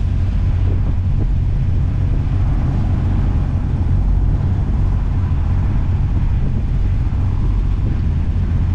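A trawler's diesel engine running steadily with a deep, even rumble.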